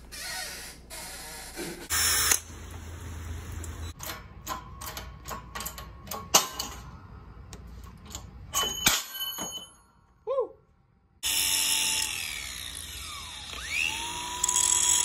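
Workshop tool sounds cut together: a run of sharp clicks and knocks, a brief near-silent gap, then a power tool running steadily with a whine that slides in pitch for the last few seconds.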